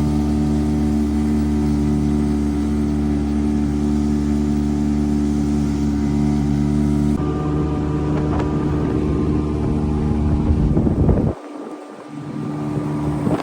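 An engine running at a steady, even pitch. The sound changes abruptly about seven seconds in and drops away sharply past eleven seconds.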